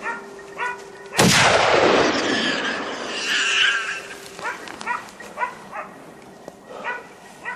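A single gunshot about a second in, its echo rolling across the valley for two or three seconds, with hunting dogs barking repeatedly, about twice a second, before and after it.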